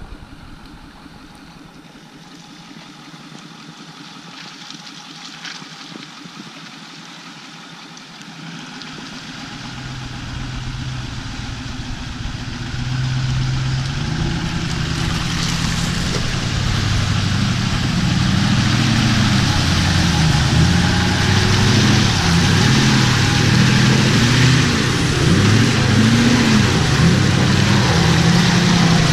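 Ford Super Duty pickup's 6.4 L Power Stroke V8 diesel pulling through deep mud and water, its revs rising and falling unevenly, growing steadily louder as the truck comes close and passes. Muddy water is splashing and churning around the tyres.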